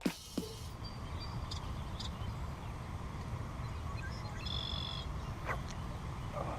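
Outdoor pond-side ambience: a steady low rumble with a few faint bird chirps, one clearer chirp about four and a half seconds in.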